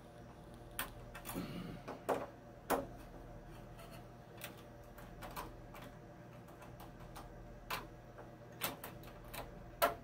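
Light, irregular metal clicks and taps from a screwdriver and wire ends being worked on the screw terminals of an electric water heater's upper thermostat, about ten separate ticks over a faint steady hum.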